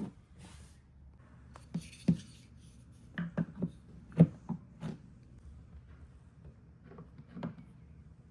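Marbles clicking and knocking as they roll along a plastic TrixTrack marble run, in irregular taps: a cluster of sharp knocks from about one and a half to five seconds in, the loudest around four seconds, then a couple more near the end.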